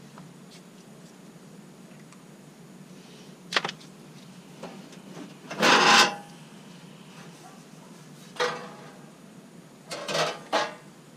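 Handling noises of the airbox being fitted against the plastic wheel well liner: a sharp click, then scrapes and knocks, the loudest a half-second scrape about six seconds in and a cluster near the end.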